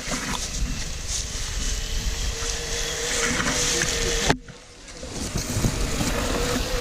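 Traxxas TRX-4 RC crawler driving through grass: a steady electric-motor whine under a noisy rush of grass brushing and wind on the microphone. The sound drops out suddenly for about half a second about four seconds in.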